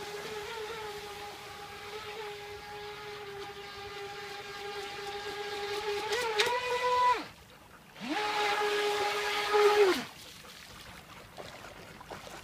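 RC jet boat's Traxxas VXL brushless motor, on a 2S battery, whining steadily at speed. The pitch rises about six seconds in, then the whine cuts off. It spins up again a second later and stops abruptly around ten seconds in.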